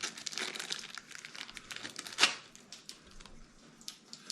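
Packaging crinkling and rustling as the accessory blades are unwrapped and handled, with a sharp click about two seconds in.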